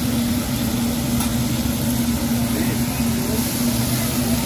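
Meat and vegetables sizzling on a hibachi teppanyaki griddle as the chef works them with a spatula, over a steady low hum from the ventilation hoods above the grill.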